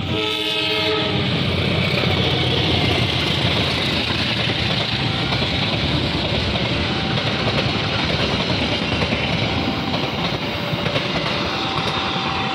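A passenger train gives a short horn blast at the start, then passes close by with a steady noise of wheels running on the rails. A level-crossing alarm rings faintly now and then underneath.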